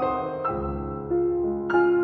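Background piano music: slow, held notes, with new notes coming in every half second or so.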